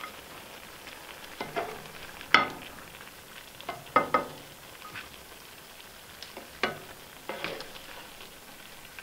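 A black serving spoon scooping rabbit stew out of a cast iron pan and knocking against the rim of a ceramic plate: a run of separate clinks and scrapes, the loudest about two and a half and four seconds in, over a faint steady hiss.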